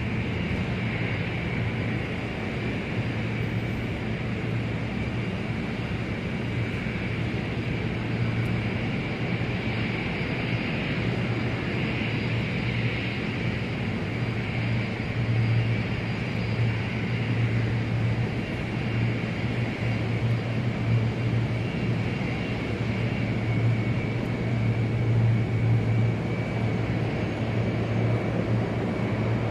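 Airport ambience dominated by aircraft engines running steadily: a constant low hum with a thin high whine over a broad rush, swelling slightly in the second half.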